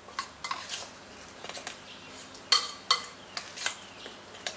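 Spoon stirring a thick, sticky fish paste in a glass bowl, clinking and scraping against the glass in irregular taps, the sharpest about two and a half seconds in.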